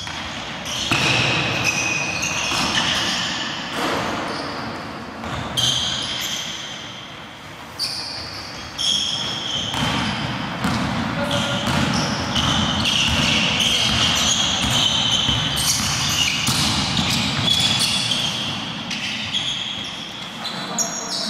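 Basketball bouncing on a hardwood court during play, with players' indistinct voices in the gym hall.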